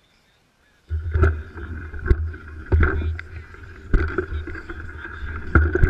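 Downhill mountain bike riding over a snowy, bumpy trail, heard muffled through a GoPro housing: a steady low rumble of tyre and frame with irregular sharp knocks from the bumps. It cuts in suddenly about a second in.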